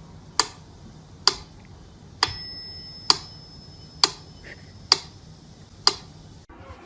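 Sharp ticks at an even pace, a little more than one a second. A short bell-like ring sounds with one tick about two seconds in.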